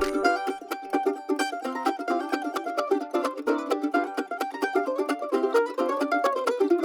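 Background music: a quick, bright plucked-string tune in a country or bluegrass style.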